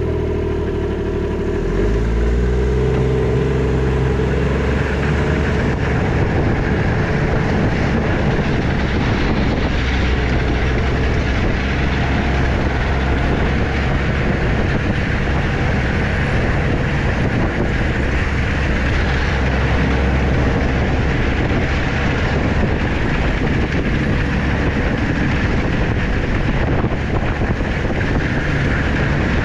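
A motor vehicle's engine running steadily under way, its pitch rising a little in the first few seconds.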